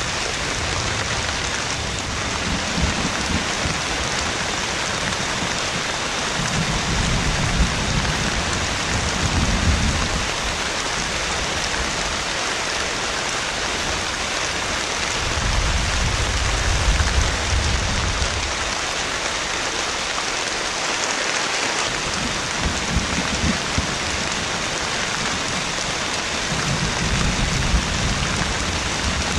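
Heavy rain pouring steadily, with low rolling rumbles of thunder swelling up several times.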